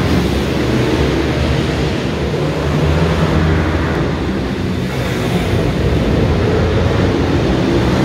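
Several small single-cylinder pit bike engines running and revving on a track, their overlapping engine notes rising and falling in pitch, inside a large indoor hall.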